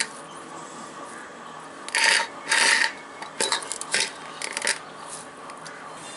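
Hands rubbing and crumbling damp soaked poha in a glass bowl: two loud rasping scrapes about two seconds in, followed by several quick bursts of light clicks and knocks against the bowl.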